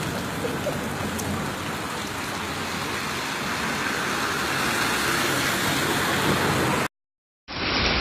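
Heavy rain pouring down onto a street, a steady dense hiss that swells slightly toward the middle. About seven seconds in it cuts off to a moment of silence, then a quieter clip of running water begins.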